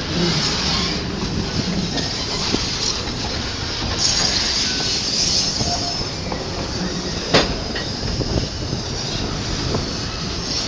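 Freight train of boxcars rolling past: a steady noise of steel wheels running on the rails, with a single sharp clank about two-thirds of the way through.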